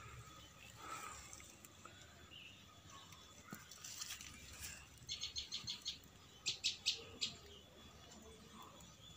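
A small bird chirping: a quick run of about seven short high chirps about five seconds in, then four louder chirps about a second later, over faint outdoor background noise.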